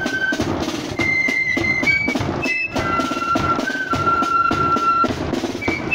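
Marching flute band playing a tune: flutes in unison carry a melody of held notes over side drums and a bass drum beat.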